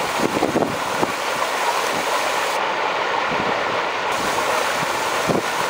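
Floodwater welling up out of a storm drain in the road like a geyser and rushing across the flooded pavement: a steady rushing noise.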